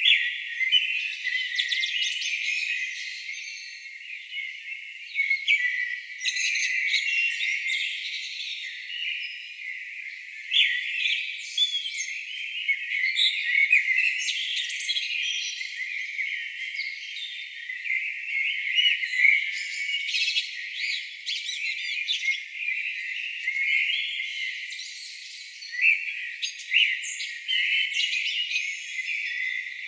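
A chorus of songbirds singing, many overlapping chirps and trills without a break, with everything below the birds' pitch filtered away.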